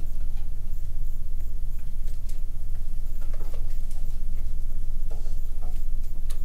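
Steady low hum, with faint scattered ticks and light rustles over it.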